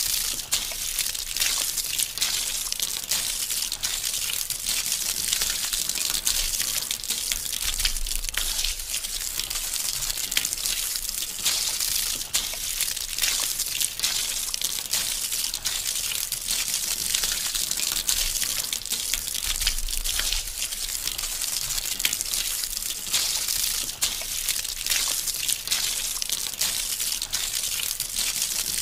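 Soapy water swishing and splashing in a small basin as a doll is washed, over a steady hiss full of small crackles.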